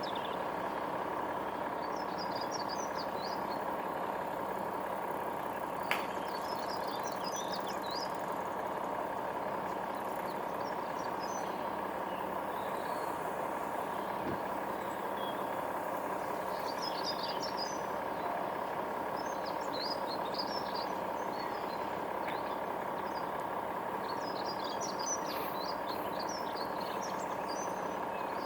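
An engine idling steadily, with small birds chirping in short bursts several times over it.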